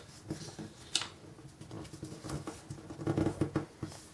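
A sheet of origami paper rustling and crinkling as hands handle and crease it, with fingers scraping over the paper; the loudest stretch comes about three seconds in.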